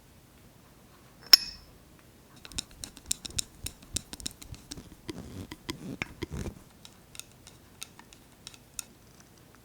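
Metal vise parts being handled in a workshop. A single sharp metallic clink with a short ring comes about a second in. It is followed by about four seconds of irregular clicks and knocks, then a few scattered ticks.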